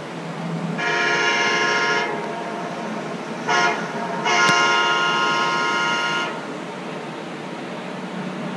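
Train horn sounding three times, a blast of about a second, a short one, then a longer one of about two seconds, over steady train running noise, heard through a television's speaker.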